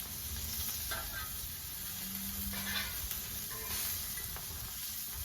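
Breakfast food frying on a hot Blackstone flat-top griddle: a steady sizzle, with a few faint short scrapes.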